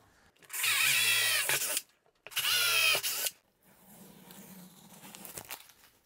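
Cordless drill run in two short bursts of about a second each, drilling the holes for a cabinet pull through a painted wooden cabinet door, followed by a quieter, lower running sound.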